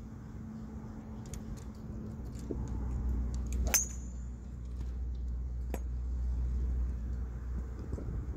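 Golf driver striking a teed ball about three and a half seconds in: one sharp crack with a brief metallic ring after it.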